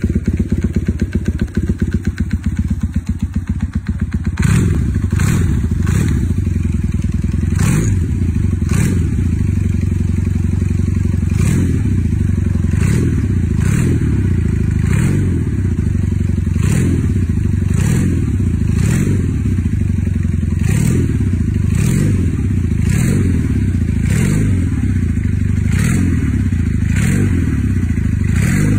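Custom motorcycle engine running. For the first four seconds or so it fires in a fast, uneven rattle, then it settles into a steady run with a sharp click about once a second.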